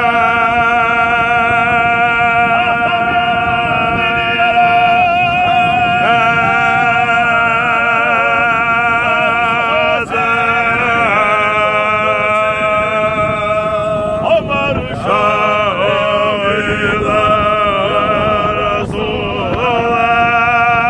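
Men singing unaccompanied in long held notes with a wavering vibrato, over a steady low rumble.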